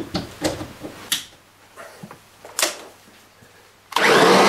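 A few clicks and knocks from the plug and cord being handled, then near the end the Kirby Ultimate G (G7) upright vacuum's motor switches on suddenly and runs loud and steady.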